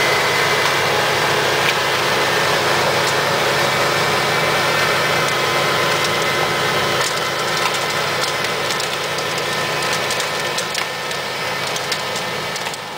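John Deere X300 lawn tractor with a 44-inch snowblower attachment running steadily, the blower chewing through snow and throwing it. Scattered sharp ticks come in from about halfway, and the sound slowly fades as the tractor moves away.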